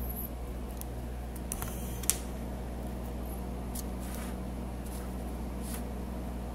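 A steady low electrical hum with a few faint clicks and taps from handling a soldering iron over a perfboard, with one sharper tick about two seconds in.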